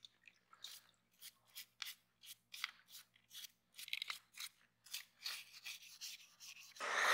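A brush scrubbing a small black plastic model-car part in soapy water, in short scratchy strokes at about three a second. Near the end, a loud steady rushing noise cuts in.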